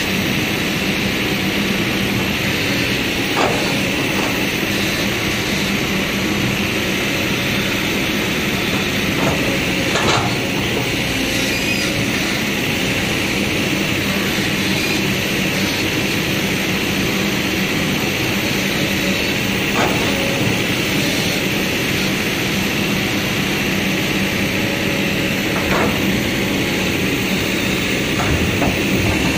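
Kobelco hydraulic excavator's diesel engine running steadily under load as its bucket scrapes sticky soil out of a tipped steel dump-truck bed, with a few sharp knocks of the bucket against the truck body.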